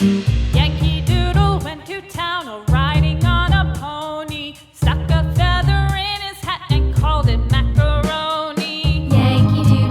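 Background pop song: a sung melody with vibrato over bass and a steady drum beat.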